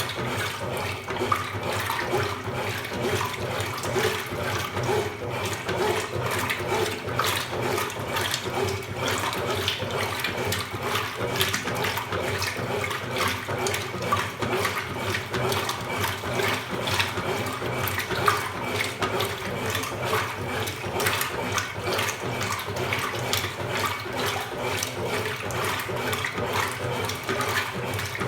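Water running and splashing inside a Consul Supercargo 8 kg washing machine, a steady rushing noise with constant small splashes.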